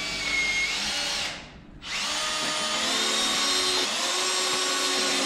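Power drill running with a steady whine, stopping briefly about a second and a half in and then starting again.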